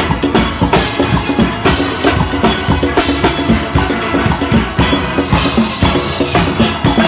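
Drum kit of a steelband's engine room (rhythm section) playing a fast, steady beat live, with the band's steel pans in the mix.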